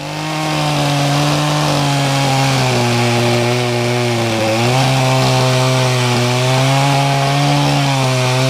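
Chainsaw running at full throttle, cutting through a wooden timber. Its pitch sags briefly about four and a half seconds in, and again slightly near the end, as the chain bites into the wood, then recovers.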